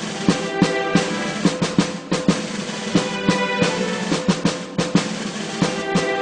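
Background music with a drum beat: repeated drum hits over steady sustained tones.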